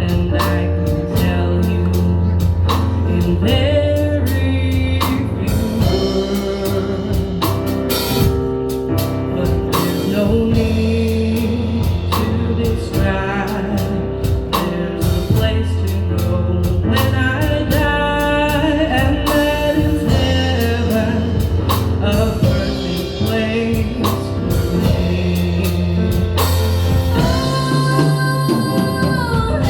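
A song: singing over instrumental backing with a steady beat.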